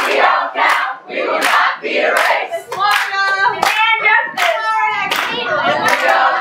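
A group of voices singing while clapping hands in a steady beat, about three claps every two seconds.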